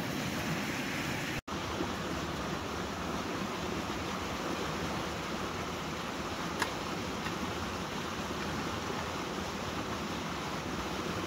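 A fast-flowing river in spate, rushing steadily close by, with one light click about halfway through.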